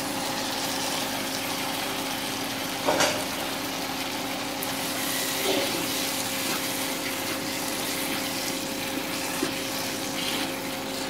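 Tomato gravy sizzling in a nonstick wok as fried chicken pieces are tipped in and stirred with a spatula, with a short clatter about three seconds in and a few lighter knocks of the spatula later. A steady low hum sits underneath.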